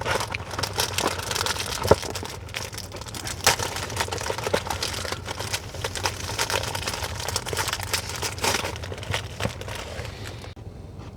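Close crinkling, rustling noise full of small sharp clicks and crackles, as of material being handled near the microphone, that stops abruptly near the end.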